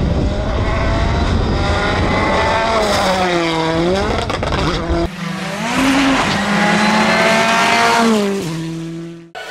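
Rally cars' turbocharged four-cylinder engines at full throttle on a tarmac stage, the first a Hyundai i20 R5. Revs climb and drop with gear changes and lifts. A cut about five seconds in brings a second pass whose revs rise, hold and fall, and the sound fades out near the end.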